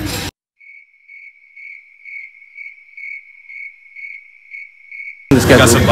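Crickets-chirping sound effect over dead silence: a high chirp repeating about twice a second for about five seconds. Music and talk cut off just after it begins and come back near the end.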